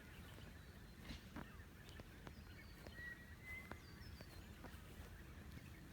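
Near silence: quiet creekside ambience with a few faint, thin bird calls and scattered soft ticks.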